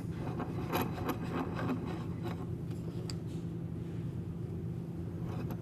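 Quiet handling noise from a clamp being set and tightened down on a wood block: small scrapes, rubs and clicks in the first two seconds, then a single tick about three seconds in, over a steady low hum.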